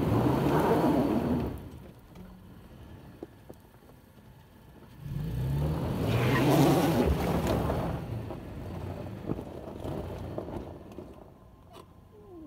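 Toyota 4Runner's engine revving hard under load as the 4x4 crawls over loose rock. There are two surges, each rising in pitch. The first ends about a second and a half in. The second, longer one starts about five seconds in and fades away near the end.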